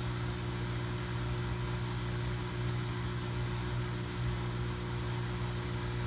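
Fog machine running and pumping fog through a cooler chiller: a steady electrical hum over an even hiss.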